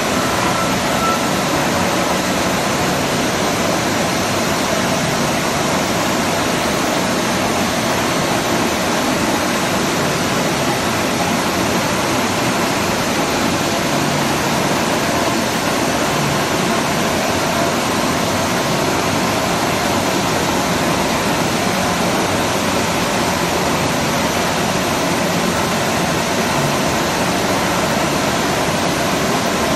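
Large milling machine running: a steady, unchanging whirring noise with no cutting or knocks.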